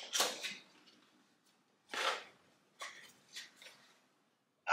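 Packaging being handled while an item is unpacked: a few short, separate rustles, the clearest at the start and about two seconds in, with two softer ones a little after.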